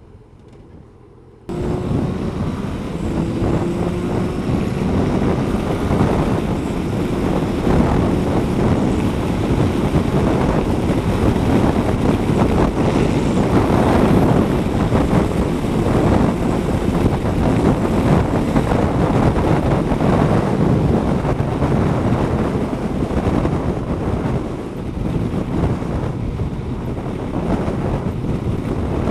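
Wind rushing over the microphone of a camera on a moving motorcycle, with the Kawasaki ZZR1200's inline-four engine running steadily beneath it at road speed; the noise comes in suddenly about a second and a half in.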